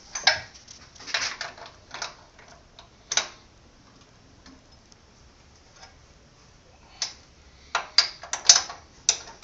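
Sharp metal clicks and clanks of a spanner working the clamping bolts at the back of a mill-drill's head as they are loosened: a few in the first three seconds, a pause, then a quicker run near the end.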